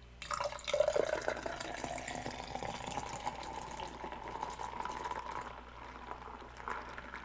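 A drink being poured into a cup of ice, a splashing pour whose pitch rises as the cup fills, easing off about five seconds in.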